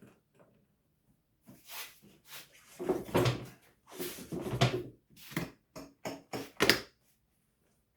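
Rummaging through the generator's box and packaging: irregular clunks, knocks and rustling as parts and packing are moved about, busiest in the second half, with the sharpest knock near the end.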